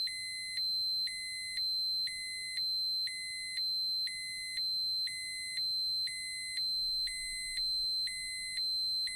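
Dosimeter alarm beeping: a steady high tone with a lower tone switching on and off about once a second, giving an even pulsing pattern.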